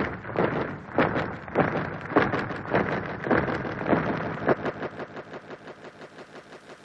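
Heavy thuds at about two a second, a sound effect on a 1970s vinyl LP, dying away over the last couple of seconds.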